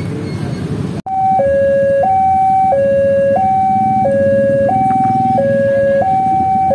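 Electronic railway level-crossing alarm sounding a steady two-tone hi-lo warning, one high-low cycle about every 1.3 s, starting suddenly about a second in, over a low rumble of engines. It signals an approaching train. In the first second, motorcycle engines idle at the crossing.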